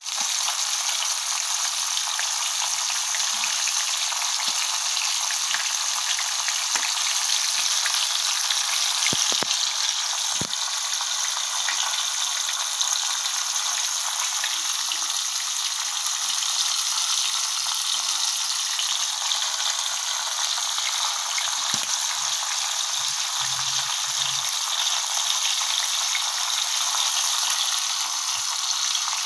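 Whole round scad (galunggong) shallow-frying in hot oil in a pan: a steady sizzle of spitting oil, with a couple of sharper pops about ten seconds in.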